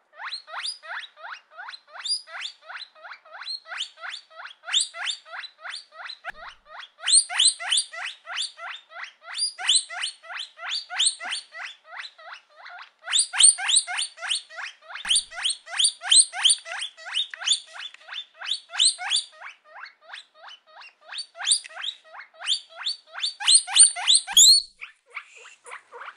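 Guinea pig wheeking: a fast, unbroken run of short rising squeaks, about three to four a second, getting louder and shriller in several stretches.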